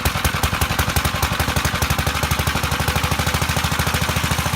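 A motorized machine starting up and running with a rapid, even pulsing of about fourteen beats a second, then winding down just after.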